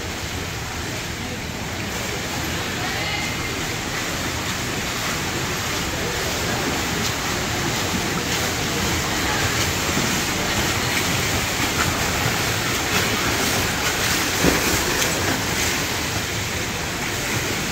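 Several butterfly swimmers splashing through the water of an indoor pool, a steady wash of echoing splash noise that grows a little louder as the heat goes on.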